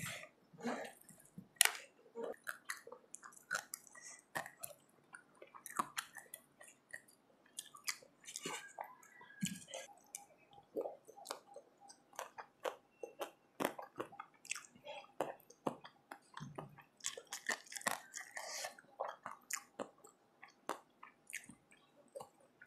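Close-miked chewing of a mouthful of rice eaten by hand: a steady run of many short, quick mouth clicks.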